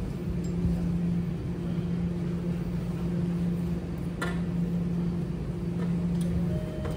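Steady low machine hum over a low rumble, with one sharp click about four seconds in.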